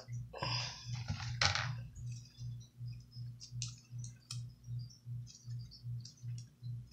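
White glue slime with kinetic rock worked into it being squished and kneaded by hand, giving scattered small crackling clicks, busiest about a second in. Under it a low background beat pulses evenly, about three times a second.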